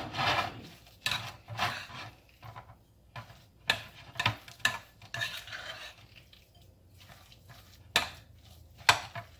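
A spoon stirring and scraping chicken salad in a bowl, in irregular strokes with sharp clicks of the spoon against the bowl.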